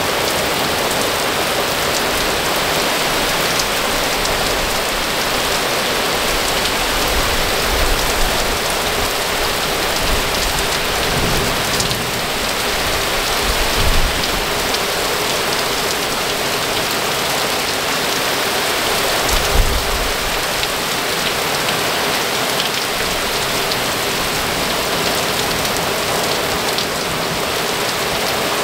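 Very heavy thunderstorm rain pouring down steadily in a dense, even hiss, with a few brief low rumbles, the strongest about halfway through and about two-thirds through.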